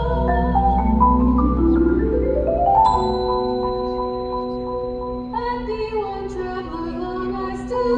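Indoor percussion front ensemble of marimbas and vibraphones playing a quick rising run of notes over about three seconds, then ringing held chords, with a new chord entering about five seconds in, over a steady low bass.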